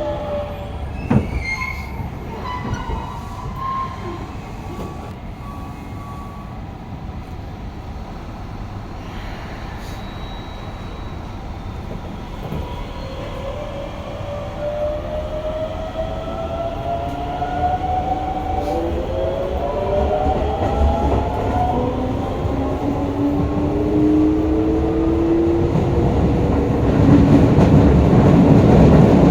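Hokuso 7300-series train's GTO-VVVF traction inverter and motors, heard from inside the car. A falling whine fades in the first second or so. From about twelve seconds in, several whines rise in pitch in steps as the train accelerates, with the rail rumble growing steadily louder.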